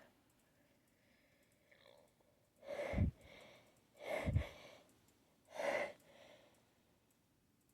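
A person's short breathy gasps, three of them about a second and a half apart, as a sneeze builds up.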